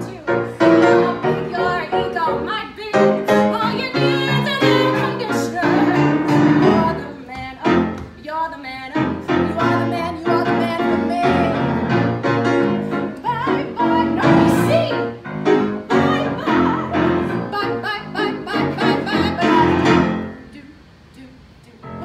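A woman singing a cabaret song with grand piano accompaniment; the music breaks off near the end.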